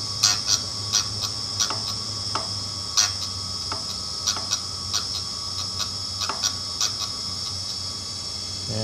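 TDR 82B drill grinder running with a steady motor hum and high whine. Over it come a series of short, irregular ticks and rasps as the drill bit in its chuck is stroked across the grinding wheel to touch up the second cutting edge. The ticks stop after about seven seconds.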